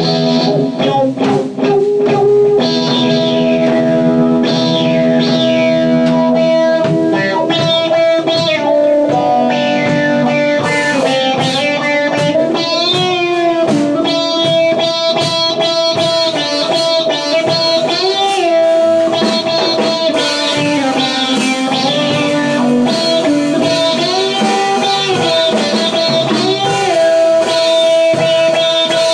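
Electric guitar playing a slow blues through an amp, mixing held notes that bend and waver in pitch with runs of quick picked notes.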